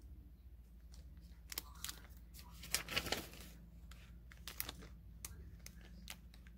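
Small plastic zip bag of glass beads crinkling as fingers handle it, in scattered short rustles, the busiest about three seconds in, over a steady low hum.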